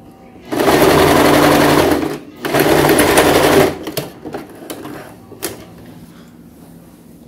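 Electric domestic sewing machine stitching a seam in two runs of about a second and a half each, with a brief stop between them. A few light clicks follow.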